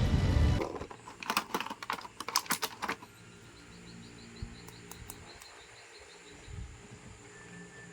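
A quick run of sharp, light clicks and taps over about two seconds, then quiet room sound with faint ticking.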